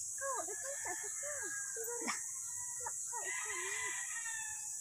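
Chickens calling, with a rooster crowing: many short rising-and-falling calls in quick succession. A steady high insect drone runs underneath.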